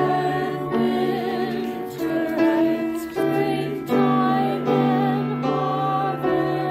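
Church choir singing a slow hymn in held chords, notes sustained about a second each with vibrato.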